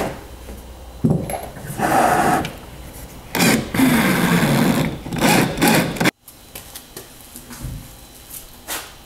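Power drill with a 25/64-inch bit running in short bursts as it bores into a particleboard panel, its pitch falling as it winds down after one burst. About six seconds in the sound cuts, leaving a quieter stretch with a brief knock near the end.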